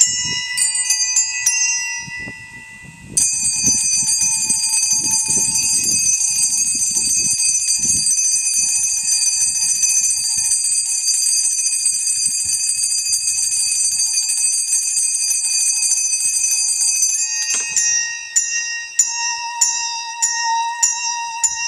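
Small handbells struck in quick repeated strokes, then a dense, sustained ringing of many high bell tones for about fourteen seconds, then struck again about twice a second. Under them a bowed musical saw holds one steady note, which starts to waver near the end.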